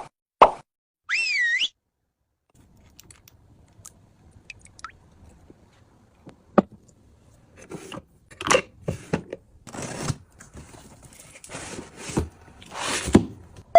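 A sharp pop, then a short warbling whistle that swoops up and down, both edited-in sound effects. After a quiet gap come a single click and then a run of rustling, scraping and clicking handling noises, like packaging and utensils being unpacked and set down.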